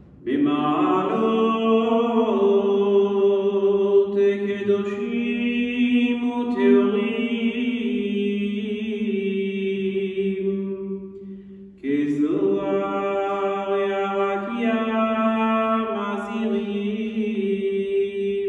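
A man's solo voice chanting a slow Hebrew funeral prayer melody, holding long notes. Two long phrases, with a short break for breath about twelve seconds in.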